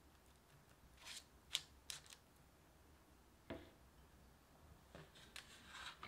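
Faint handling sounds: a few light clicks and taps in the first two seconds as a pastry brush dabs egg wash onto shaped cornbread dough on a parchment-lined baking tray, then a single soft knock about three and a half seconds in and a papery rustle near the end.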